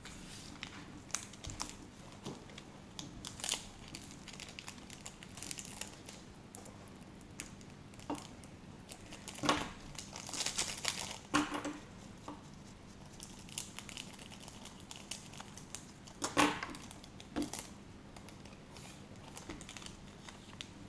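Foil wrapper of a trading-card pack crinkling and tearing as it is handled and opened, in scattered rustles and clicks, busiest about ten seconds in and again around sixteen seconds.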